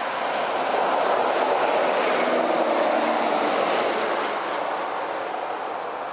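A distant vehicle passing: a steady rushing noise that swells about a second in and slowly fades away towards the end.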